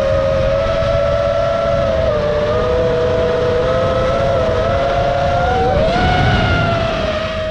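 FPV quadcopter's electric motors and propellers whining in flight, the pitch shifting with throttle, with a brief dip and then a sharp rise about six seconds in. Low wind rush on the onboard camera's microphone underneath.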